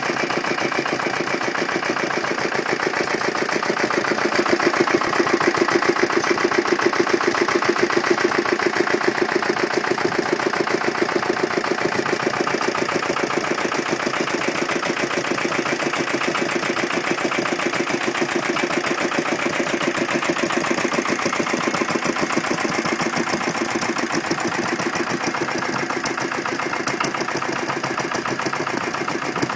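Lister single-cylinder stationary engines running steadily, with a fast, even exhaust beat that swells slightly a few seconds in.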